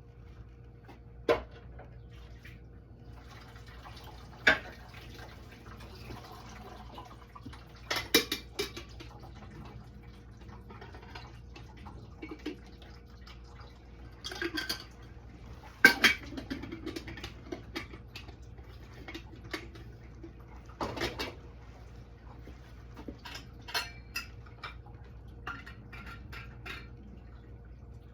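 Irregular clinks and knocks of hard objects being handled and set down, about a dozen sharp strikes, some ringing briefly, over a faint steady low hum.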